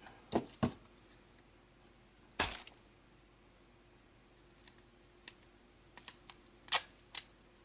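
Scattered light clicks and taps from objects being handled and set down on a workbench: a pair early, one louder knock about two and a half seconds in, then a string of small ticks near the end.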